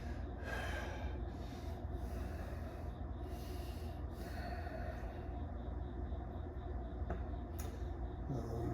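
A man breathing heavily in and out, about five audible breaths over the first five seconds, while he sits in cold plunge water. The breathing then eases off, with a couple of small clicks near the end, over a steady low hum.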